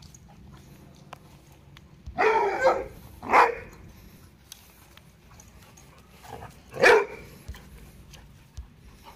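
A hound barking in play while two dogs wrestle: three loud barks, a longer one a couple of seconds in, a short one about a second later, and another toward the end, with fainter yips between.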